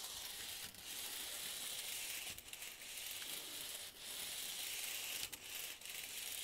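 Bachmann N scale Santa Fe 4-8-4 Northern model steam locomotive running along its track: a steady high-pitched whir from its small electric motor and wheels, broken by a few short clicks.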